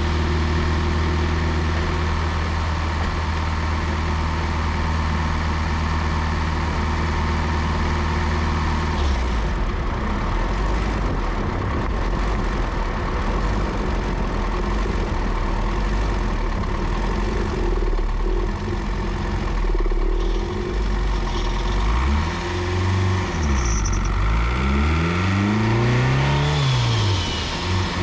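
Turbocharged Honda B16 four-cylinder engine running at a steady note for about nine seconds, then rougher and less even, and near the end revving up and down several times in quick swings.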